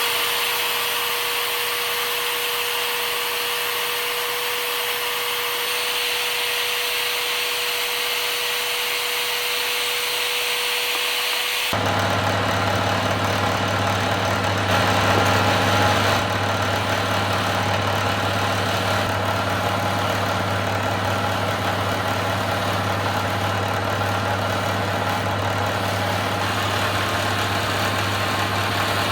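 Workshop power tool motors running steadily. First a motor with a steady whine, then, about twelve seconds in, an abrupt switch to a different machine with a deeper, steady hum.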